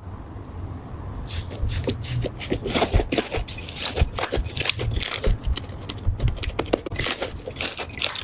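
Slime being squeezed and pressed by hand, giving a dense run of sharp clicks, pops and crackles that builds up about a second in.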